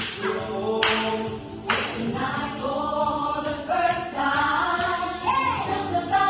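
A show choir singing together, with the voices filling out and rising in pitch about halfway through. Two sharp percussive hits land in the first two seconds.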